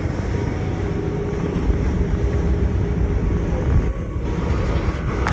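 Steady low rumble of a boat's engine under way, mixed with wind and sea noise in a storm.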